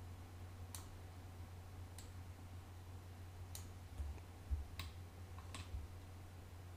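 Faint, separate clicks of a computer mouse and keyboard, about five spaced roughly a second apart, over a steady low hum.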